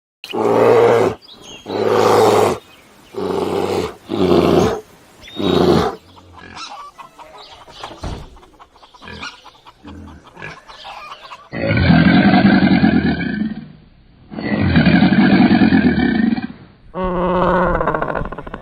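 A run of animal calls from different recordings. First come five short pitched calls in quick succession, then quieter scattered sounds, then two long loud calls, and another call starts near the end.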